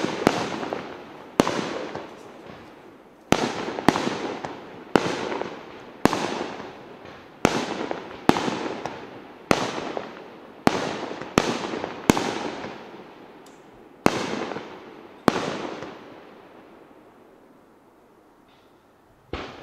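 Aerial fireworks bursting in a steady series, about one bang a second, each trailing off in a long fading tail. The bangs stop about three-quarters of the way through, and a single last bang comes near the end.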